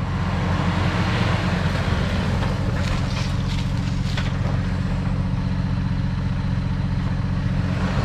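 Off-road 4x4 engine running steadily at low speed on a rough trail, with a few short knocks about three to four seconds in.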